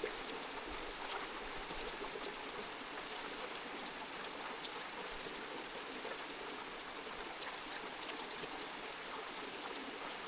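Creek water running with a steady rushing sound, with a few faint ticks of small splashes.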